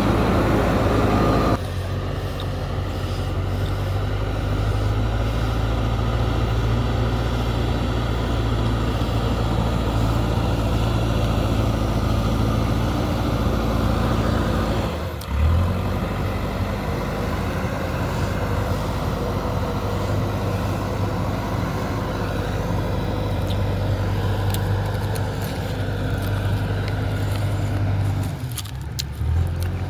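JCB 3DX backhoe loader's diesel engine running steadily as the machine works. The sound changes abruptly about a second and a half in and again about halfway through. A few faint clicks come near the end.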